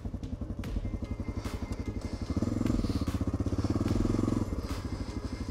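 Honda Dominator NX650's single-cylinder four-stroke engine running at low speed with an even firing beat. It gets louder from about two seconds in and eases off again near the end.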